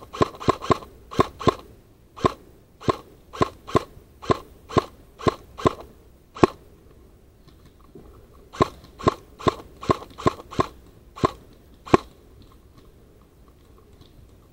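Airsoft gun firing single shots at a steady pace of about two a second: a first string of about fourteen sharp cracks, a short pause about six and a half seconds in, then about eight more that stop about twelve seconds in.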